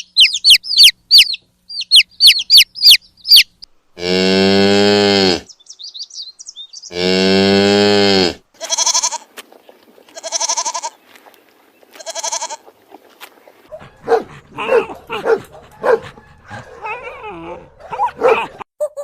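A run of animal sounds one after another: quick bursts of bird chirps, then two long cow moos about four and seven seconds in, then three shorter bleating calls evenly spaced, then a jumble of short animal calls near the end.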